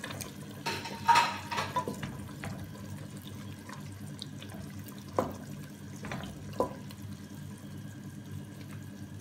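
Wooden spatula stirring shrimp and meat in a nonstick pot, with a few sharp knocks against the pot about a second in and again near the middle, over a steady bubbling of the simmering soy-sauce liquid.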